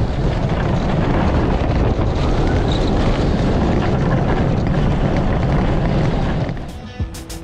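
Loud wind rushing over the microphone of a camera riding on a roller coaster car at speed, with the rumble of the ride underneath. Near the end it cuts off and music with plucked guitar notes begins.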